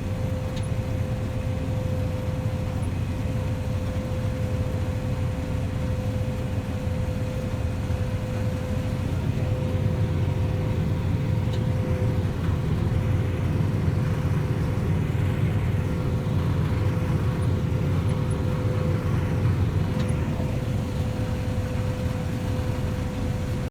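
Farm machinery running steadily: a low engine rumble with a constant whine over it.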